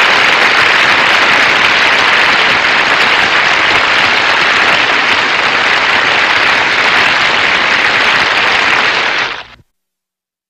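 Studio audience applauding steadily, then fading and cutting off abruptly near the end.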